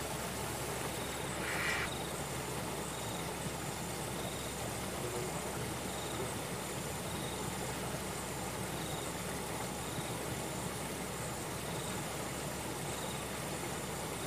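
An insect chirping steadily at about one and a half chirps a second, high and faint, over a constant hiss. A short, louder rustle comes about one and a half seconds in.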